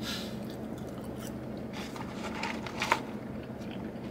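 A person chewing French fries, with a few short mouth clicks, the sharpest about three seconds in.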